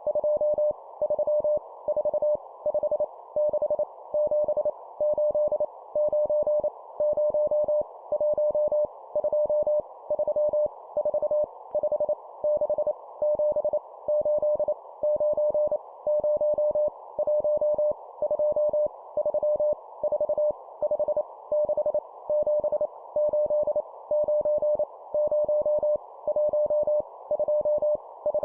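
Morse code (CW) practice tone sending numbers at 25 words per minute: a single steady mid-pitched beep keyed on and off in fast dits and dahs, with short gaps between characters. A faint, steady band of hiss sits under the tone throughout.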